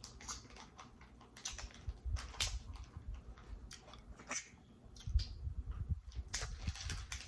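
Snow crab leg shells cracking and snapping as they are broken open, with close-up chewing and mouth sounds; many irregular sharp clicks throughout.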